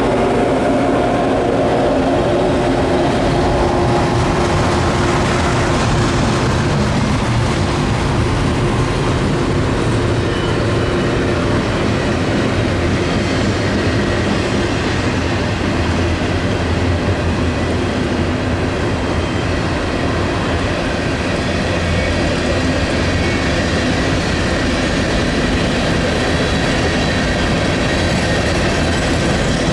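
Freight train cars rolling past at a steady, loud level, the wheels rumbling on the rails. A few steady tones fade out in the first few seconds.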